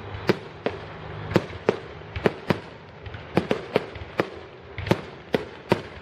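Fireworks grand finale: shells bursting in quick succession, about two sharp bangs a second at irregular spacing, over a continuous crackle and rumble.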